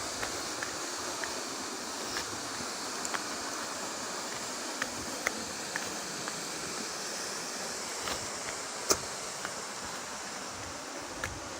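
Steady rushing of a small waterfall or mountain stream, with scattered light clicks and knocks over it; the sharpest click comes about nine seconds in.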